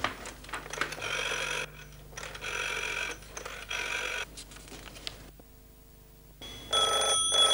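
Rotary telephone being dialled: the dial whirs back three times in a row. Near the end a telephone bell starts ringing.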